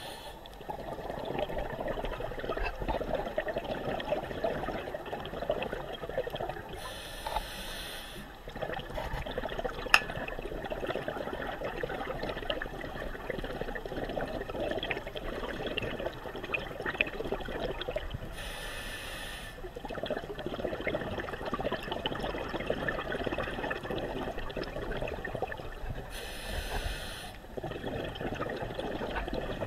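Underwater sound from a freedive: constant crackling and bubbling water noise with many small clicks, broken by three brief hissing bursts roughly ten seconds apart and one sharp click about ten seconds in.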